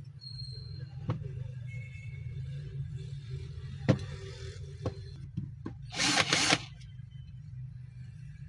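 Small wooden blocks being handled, knocked together and set down on a cloth-covered table, giving several sharp knocks, over a steady low hum. About six seconds in comes a loud burst of noise lasting about half a second, the loudest sound.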